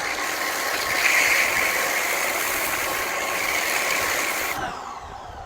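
VEVOR wet/dry vacuum cleaner running with a steady rushing whine, switched off about four and a half seconds in, its motor winding down with a falling pitch.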